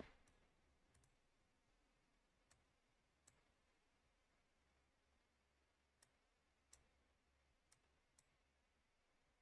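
Near silence with about ten faint, isolated computer mouse clicks scattered through it.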